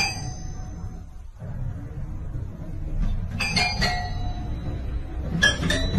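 Toy piano notes struck by a cat's paw: small clusters of bell-like notes ringing out, one fading at the start, another about three and a half seconds in and a third near the end, over a low rumble.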